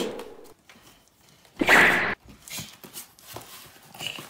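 Packing tape ripped off a cardboard box in one loud tear about one and a half seconds in, followed by light rustling and tapping of the cardboard flaps and paper.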